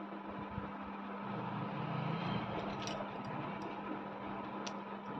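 Steady low background hum with faint handling noise and a few small, light clicks while plush fur fabric is stitched by hand with a needle.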